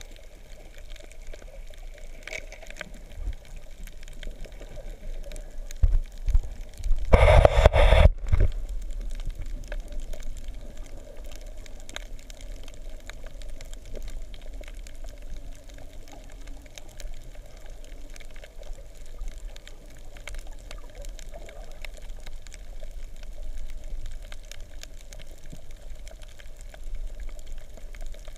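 Muffled underwater water noise picked up by a submerged camera: a steady low wash. About six seconds in, a loud burst of rushing and knocking noise lasts about two seconds.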